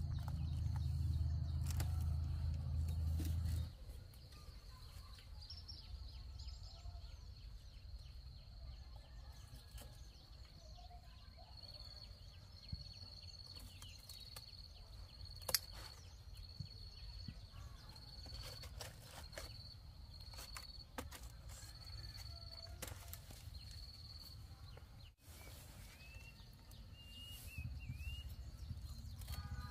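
Outdoor ambience. A low steady hum for the first few seconds stops abruptly, leaving faint background noise with a thin high-pitched sound repeating in short pulses and a few short high chirps near the end.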